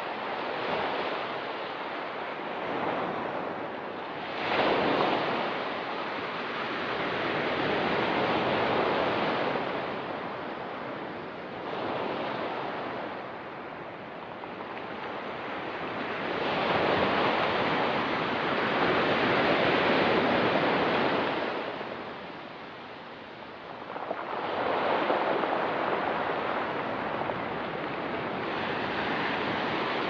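Ocean waves breaking and washing up the shore, a steady hiss that swells and ebbs in slow surges every few seconds, with the longest and loudest surge a little past the middle.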